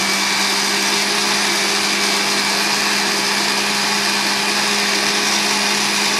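Countertop blender motor running steadily at one speed, churning a liquid fruit mixture in its glass jar, with a steady whirring hum.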